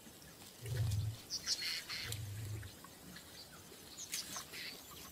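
Bush ambience of birds chirping and calling, with two short low rumbles about one and two seconds in.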